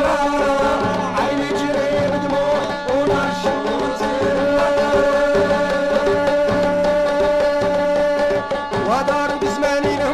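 Middle Eastern folk music played by a band: hand drums keep a steady rhythm under a melody line, with one long held note from about four to eight seconds in.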